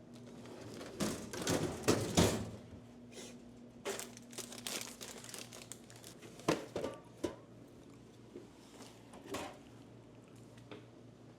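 Plastic snack bags crinkling as they are handled, in irregular bursts, loudest about a second or two in.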